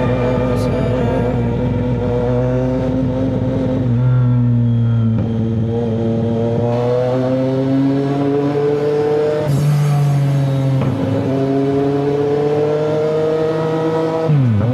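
CFMoto 675NK's inline-three engine pulling under throttle, its pitch rising slowly and stepping up and down several times. The pitch drops sharply near the end.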